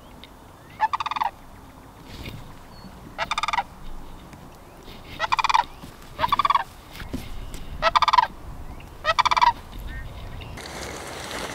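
Sandhill crane giving six short rattling calls, each about half a second long and one to two seconds apart.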